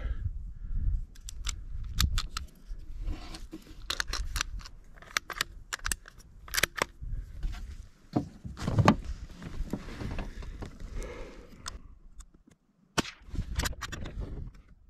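Savage B22 Magnum bolt-action rifle being handled: a run of small metallic clicks and rattles as the unfired .22 WMR round goes back into the magazine and the bolt is worked, with a louder knock about nine seconds in.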